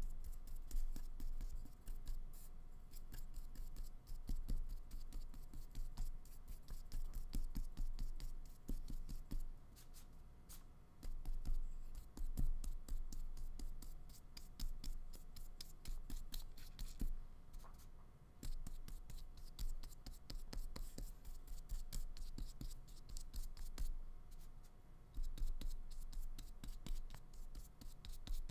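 Paintbrush scratching and dabbing acrylic paint on paper in quick, uneven strokes.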